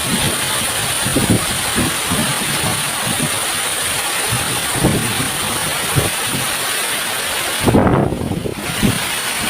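Waterfall's rushing water, a steady hiss across the range, with scattered low thumps of wind on the microphone and a stronger low buffet about eight seconds in.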